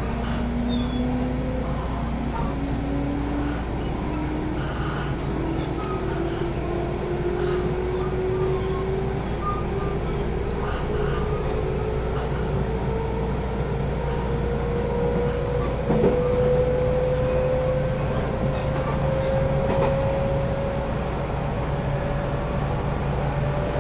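JR West 221-series electric train pulling away and picking up speed, heard inside the passenger car: a motor whine rises steadily in pitch over the steady rumble of wheels on rail. A single sharp knock comes about two-thirds through.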